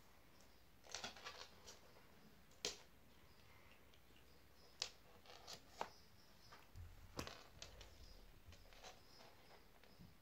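Faint, scattered clicks and scratches of a playing kitten's claws and paws scrabbling on a rug and laminate floor.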